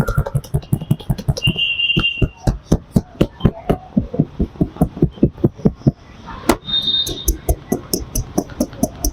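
A barber's hands rhythmically striking a client's body in percussive massage, a fast even patter of slaps or chops at about five a second.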